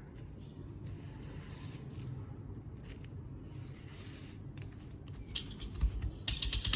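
Sewing kit items handled close to the microphone: faint handling noise, then a quick run of sharp clicks and taps in the last second and a half.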